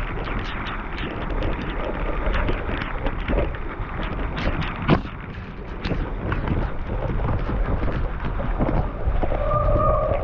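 Mountain bike rattling and knocking over a rough dirt trail, with wind buffeting the microphone, and a sharper knock about five seconds in.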